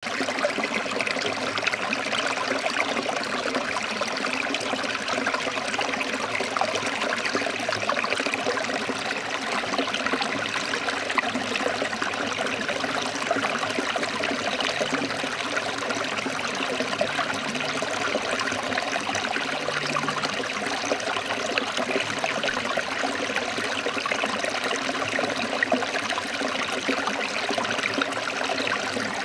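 Running water flowing and trickling steadily, an even splashing wash with no pauses or changes.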